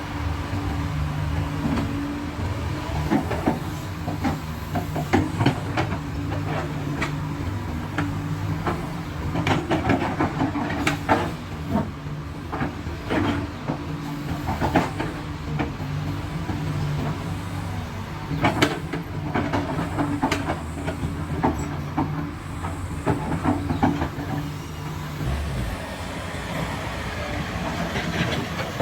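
Hydraulic excavator at work: its diesel engine runs with a steady low note that steps up and down in pitch, and repeated short knocks and clanks sound throughout as it works the dirt.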